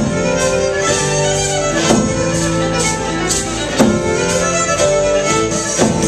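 Live fiddle-led Celtic fusion band: a violin plays the melody over keyboard, electric guitar and hand percussion, with a strong beat about every two seconds.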